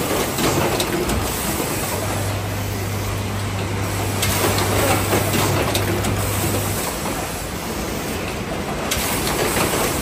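YH009A-3 fully automatic plug-insert crimping machine line running: a steady mechanical clatter with scattered sharp clicks, and a low hum that comes in about two seconds in and stops near seven seconds.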